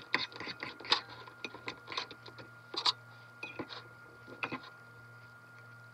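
Metal forks clinking and scraping against a ceramic bowl while stirring and tossing noodles: irregular sharp clicks over the first four and a half seconds, then they stop.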